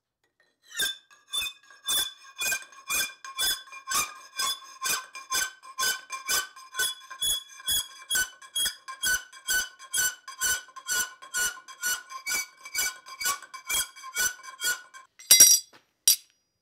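Hand file cutting steel flat bar held in a bench vise, cleaning up a notch with even strokes about twice a second, the clamped bar ringing with a steady high tone under the strokes. Near the end, two sharp metallic clanks.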